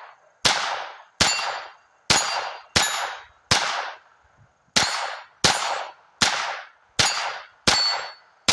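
SIG P322 .22 LR rimfire pistol fired unsuppressed in steady semi-automatic shots, about ten, roughly one every three-quarters of a second with a brief pause near the middle, each shot followed by a short ringing tail. The pistol is cycling reliably through its first magazine.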